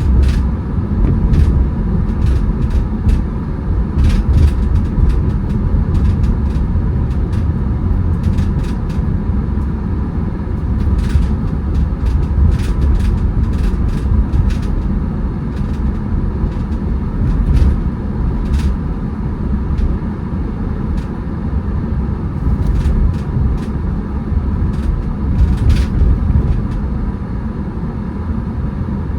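A car on the move: steady low road and engine rumble, with scattered sharp ticks and clicks throughout and a faint steady tone.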